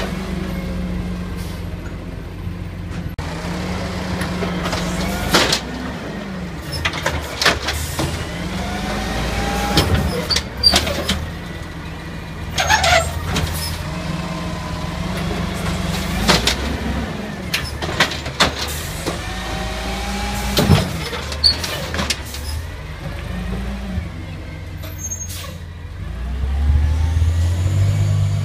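CNG-powered Amrep automated side-loader garbage truck emptying recycling carts: the engine runs steadily while the hydraulic arm whines up and down several times, with sharp bangs as the carts are tipped and set down. Near the end the engine gets louder as the truck pulls away.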